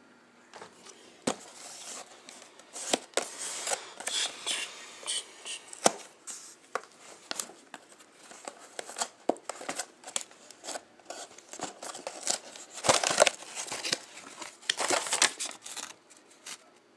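Paper and plastic packaging crinkling and tearing as it is handled and pulled open, with irregular sharp clicks and rustles.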